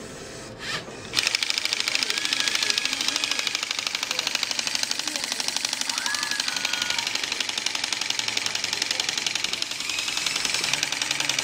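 Motor-driven LEGO pneumatic compressor starting up about a second in, then running with a rapid, even clatter of its pump pistons and gears as it builds air pressure.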